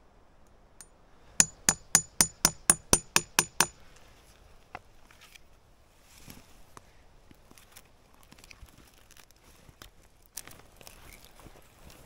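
A hammer striking a nail about ten times in quick succession, about four blows a second, each blow with a short metallic ring. Afterwards come only faint taps and rustling.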